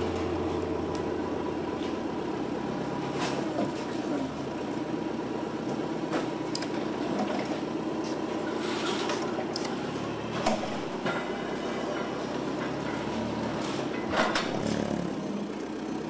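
Machinery running steadily with a constant hum, broken by a few sharp clinks and knocks.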